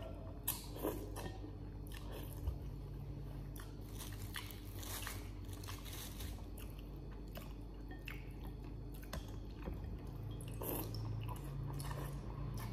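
A person eating noodles with chopsticks close to the microphone: chewing and biting, with many small wet clicks and smacks.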